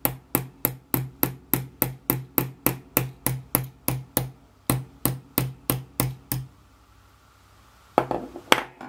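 Small hammer tapping a thin metal axle into a plastic propeller resting on a wooden block: light, even strikes about three or four a second that stop about six seconds in. A couple of louder knocks follow near the end.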